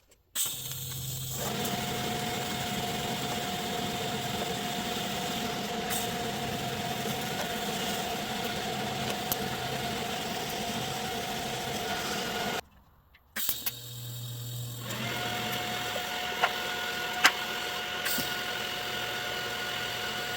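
Electric arc welding on small frame mounting tabs: a steady arc hiss with a constant hum, running about twelve seconds, stopping briefly, then running again for about seven seconds.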